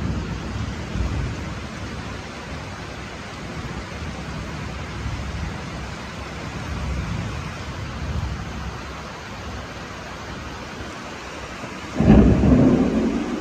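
Tropical thunderstorm: steady heavy rain with low thunder rumbling on and off. A sudden, much louder crack of thunder breaks in near the end.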